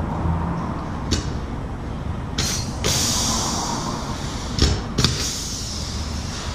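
Pneumatic rivet gun firing, with sharp snaps and long hisses of air exhaust as it pulls fasteners into steel bumper-mount brackets. A steady low hum runs underneath.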